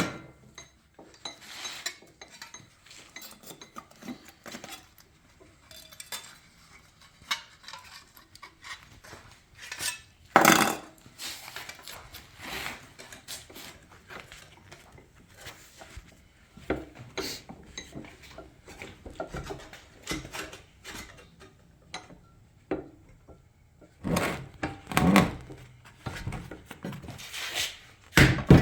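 Sheet metal and hand tools being handled on a workbench: scattered metallic clinks and knocks, with one louder knock about ten seconds in and a cluster of knocks a few seconds before the end. A run of quick hammer blows on the sheet-metal patch starts just at the end.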